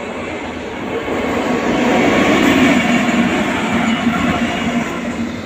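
Indian Railways WAG-9 electric locomotive running past close by: its running noise swells to a peak about halfway through as it passes, then fades as it moves away.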